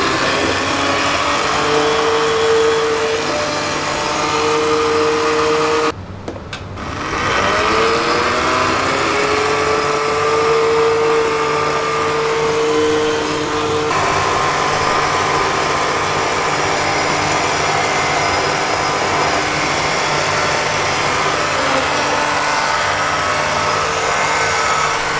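Commercial stick blender running steadily in a large pot of thick onion, tomato and cashew puree, a loud motor whine. About six seconds in it cuts out briefly, then spins back up with a rising whine.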